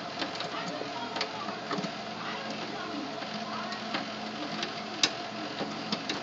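Scattered light clicks and handling noise as an Ethernet cable is fitted into a network switch, the sharpest click about five seconds in, over a steady low electrical hum.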